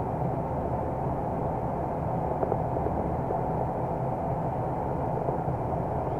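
Steady drone of a 060-DA (LDE2100) diesel-electric locomotive's Sulzer 12-cylinder diesel engine mixed with wheel and rail noise, heard from inside the cab while under way. A few light knocks come about two and a half seconds in.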